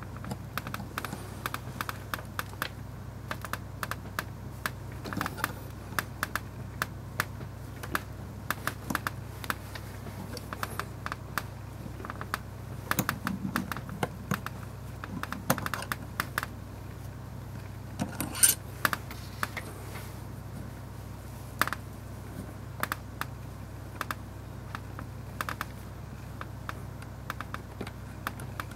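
Small metallic clicks and taps of a stainless pipe tool being turned by hand on a Leica M3's top plate to unscrew a part, irregular throughout, with a denser cluster about halfway and the loudest clicks a little later.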